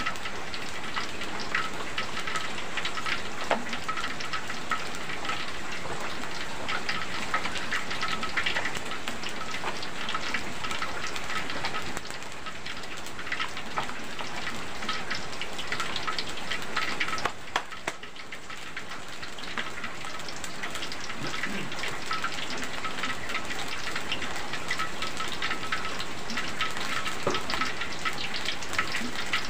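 Heavy rain pouring steadily, a dense patter full of small ticks.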